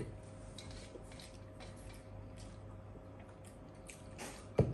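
Quiet room tone with a steady electrical hum and faint ticks and clicks of eating by hand from a metal plate, then one sharp knock near the end.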